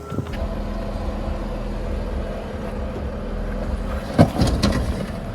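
Jeep Wrangler engine running low and steady as it crawls over rock, with a sharp knock about four seconds in and a few smaller knocks just after.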